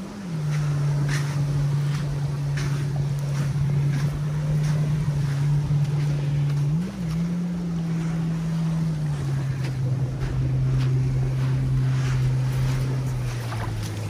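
Motorboat engine running steadily, its pitch dipping and briefly rising a few times as the throttle changes, over a hiss of surf and wind.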